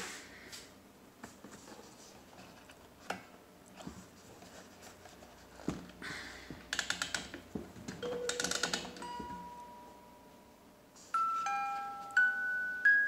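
The clockwork mechanism of an antique cased automaton clicking and ratcheting in two quick runs as it is worked by hand, then its music box begins to play, ringing out single clear notes at different pitches near the end.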